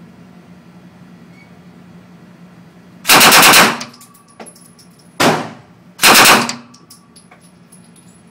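Fully automatic shoulder-fired gun shooting indoors. About three seconds in there is a rapid burst of roughly half a second. A single shot follows about two seconds later, then another short burst.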